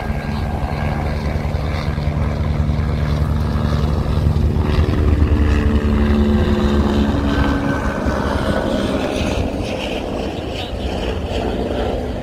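Steady low rumbling roar from the Fagradalsfjall volcano's erupting lava cone as it spatters lava from its top, with a droning hum rising and peaking around the middle.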